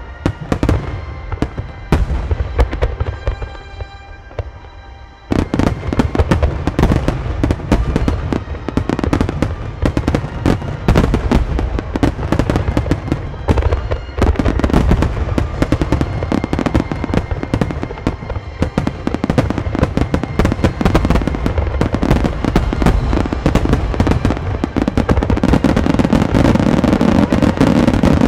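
Starmine aerial fireworks barrage: a few scattered shell bursts at first, then about five seconds in a sudden, dense volley of bangs in rapid succession that grows thicker and louder toward the end.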